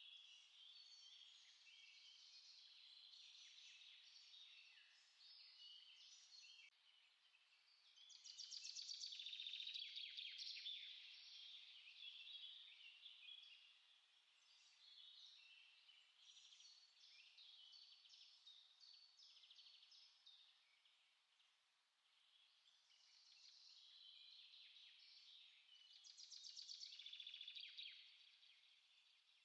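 Several songbirds singing and chirping together in a dense, quiet chorus of short high notes. Louder, fast trills come about eight seconds in and again near the end.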